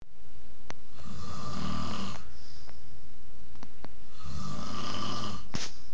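A man snoring in a steady rhythm: two long snores about three seconds apart, each lasting around a second, with a short sharp click near the end.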